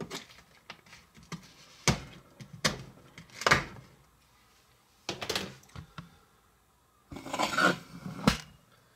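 Small kitchen knife chopping a hard chocolate-covered toffee bar on a plastic cutting board: irregular sharp knocks of the blade hitting the board, a few seconds apart. Near the end there is a longer, rougher clatter and one last knock.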